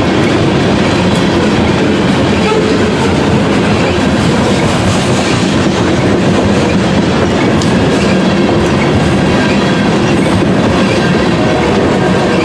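Covered hopper cars of a freight train rolling past close by: a loud, steady rumble of steel wheels on the rails.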